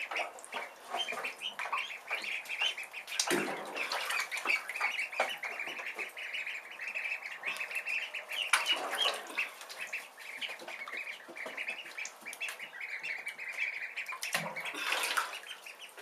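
A brood of Khaki Campbell ducklings peeping, many short high-pitched calls overlapping without a break, with a few louder rushing noises among them.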